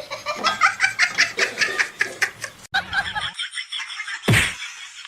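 A person laughing in rapid, rhythmic bursts, which stops abruptly; a short loud thump follows about four seconds in.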